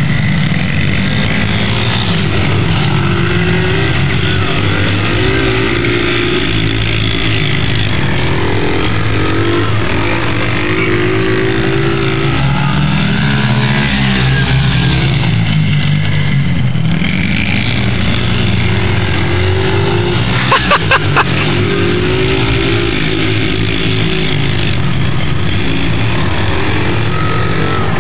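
Several small Yamaha pit-bike engines revving at once, their buzzing notes overlapping and rising and falling in pitch as the bikes accelerate and back off around the track. A quick burst of four sharp knocks about three quarters of the way through.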